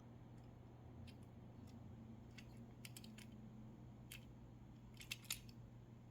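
Near silence with faint scattered clicks and taps from small die-cast toy trucks being handled, coming in a quick cluster about five seconds in.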